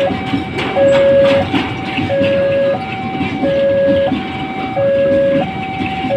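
Electronic level-crossing alarm sounding a steady two-tone hi-lo signal, changing pitch about every two-thirds of a second, over the rumble of covered freight wagons rolling past.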